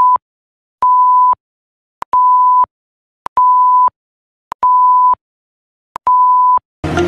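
Countdown-timer beeps: a steady mid-pitched tone in beeps of about half a second, repeating roughly every 1.25 seconds, six in all, each with a short tick at its start and end. Music starts near the end.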